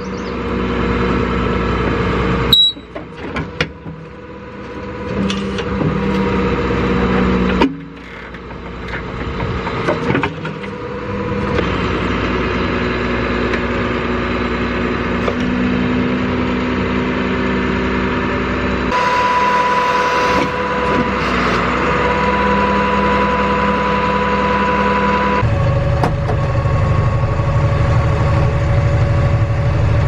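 Big John 65-inch tree spade truck running, its engine and hydraulics working steadily as the spade blades are driven into hard ground full of rocks and roots. The sound changes abruptly several times, and near the end the truck's engine is heard from inside the cab while driving.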